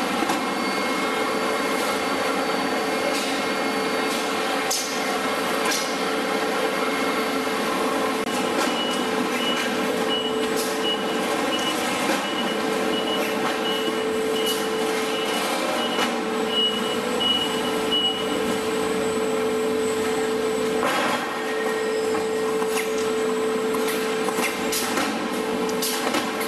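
CHANG-I CI-VCB4-IVS veneer core builder running: a steady mechanical hum with a constant tone, and clicks and knocks from the mechanism. From about a third of the way in to about two thirds, a high-pitched beep repeats one to two times a second.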